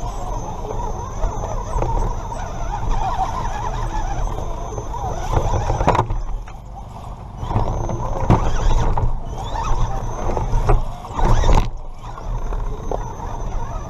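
Electric motor and gear whine of a Redcat GEN7 Pro RC rock crawler as it drives, cutting out and starting again several times, with clicks and scrapes of the tyres and chassis on rock.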